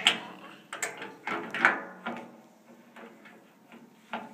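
Metal pliers knocking and scraping against a radiator valve, about four ringing clanks in the first two seconds, then fainter taps and one more clank near the end.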